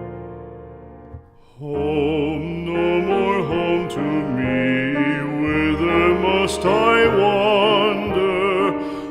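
Background music: a piano chord fades away, then about two seconds in a slow, gentle melody with vibrato begins over a sustained accompaniment.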